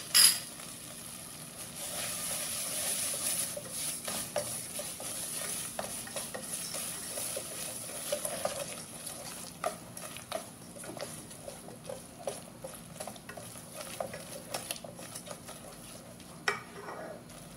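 A silicone-coated whisk stirring and mashing cream cheese and sugar in a nonstick saucepan over the gas flame, with many small irregular ticks and taps of the whisk against the pan over a steady high hiss. A sharp knock comes right at the start.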